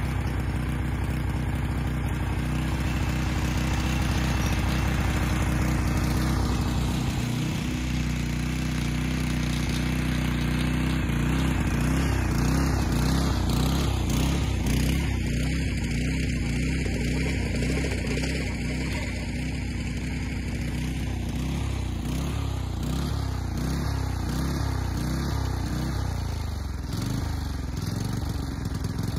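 Small petrol engine of a wing mower running with the cutting-blade clutch engaged. After a few seconds its speed begins to rise and fall over and over: hunting under load, which the owners suspect comes from the drive belt.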